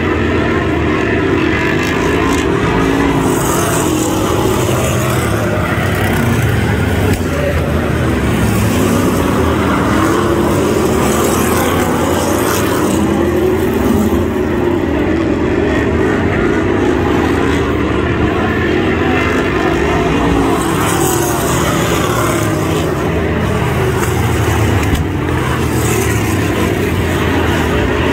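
Pack of BriSCA F1 stock cars' V8 engines racing round the oval, their pitch rising and falling as the cars accelerate and back off through the bends.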